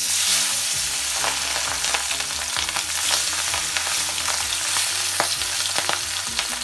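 Tengra catfish frying in hot mustard oil in a wok: a loud sizzle that starts suddenly as the fish go into the oil, with crackling and spitting throughout.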